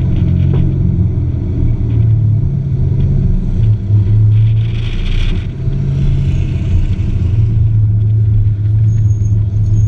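A car's engine running under changing throttle, its low drone shifting up and down in pitch, heard with road and wind noise from a camera mounted outside the driver's window. There is a brief hiss about five seconds in.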